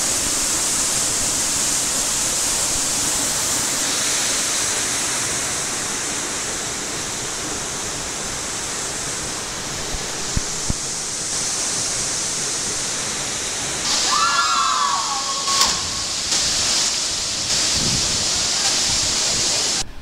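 Waterfall pouring down a rock face into a pool: a loud, steady rush of falling water. People's voices call out briefly about two-thirds of the way through.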